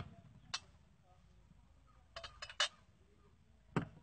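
Small glass bottles clinking and knocking as they are handled and set down on a table: one click, then a quick run of about four, then one more near the end.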